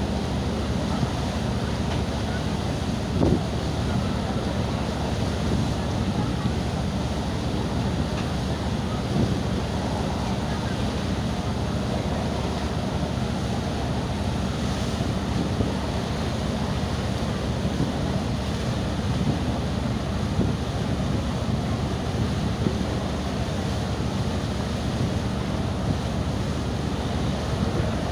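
Steady rushing and splashing of a boat's wake churning river water, with wind buffeting the microphone.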